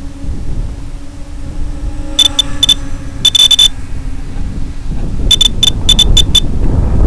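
Steady low wind rumble on the microphone, with two irregular clusters of short, high electronic beeps: one about two seconds in, the other from about five seconds in.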